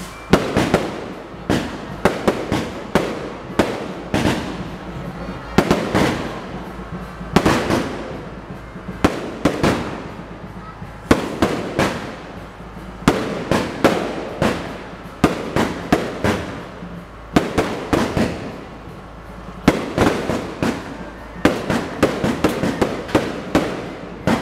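Aerial fireworks going off in rapid succession: sharp bangs several times a second in irregular clusters, with louder bursts every second or two.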